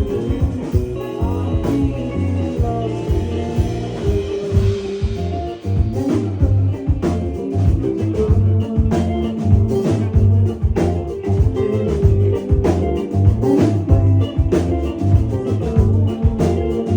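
A live band playing a song, with steady drum-kit hits over bass and guitar.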